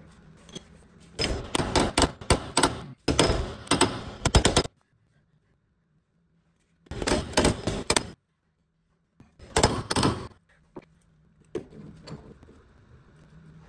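Bursts of rapid, sharp metallic clicks and knocks from hand tools working on the rear upper ball joint of a Lotus Elise S1, several short runs separated by abrupt silences, with a few lighter clicks near the end.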